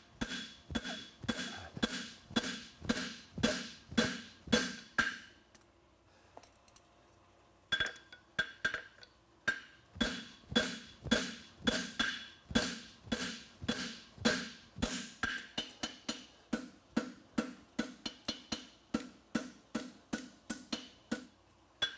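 Hand hammer blows on a red-hot steel bar over a forming block on an anvil, each blow ringing briefly: the farrier driving the bar into the block's corner to form the toe corner of a horseshoe. The blows come steadily at about two or three a second, stop for about two seconds around six seconds in, then resume, lighter and quicker near the end.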